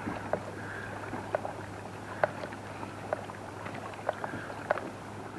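Water lapping against a pedal boat's hull: short, light slaps about once a second over a faint steady hiss.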